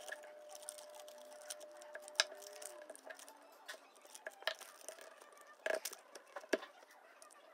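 Hands handling folded paper and a glue stick on a wooden table: scattered light clicks and taps with faint paper rustling, the sharpest taps about two seconds in and in a cluster near the end. A faint steady hum stops about three seconds in.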